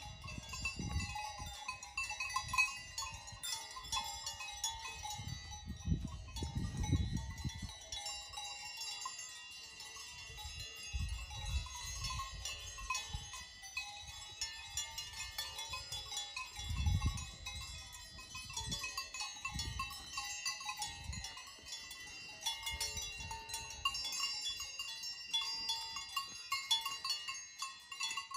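Many livestock bells on grazing alpine animals clanking and ringing unevenly and continuously, with occasional low rumbles.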